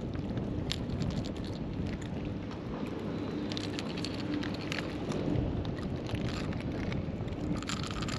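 Wind buffeting the microphone over water lapping around the wader, with scattered small splashes and clicks as a speckled trout is unhooked from a topwater plug with pliers at the water's surface.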